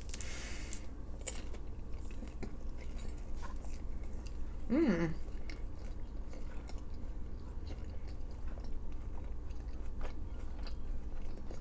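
Close-up chewing and biting of a crunchy fried veggie roll, with many small crackling crunches. A short hum of the voice comes about five seconds in.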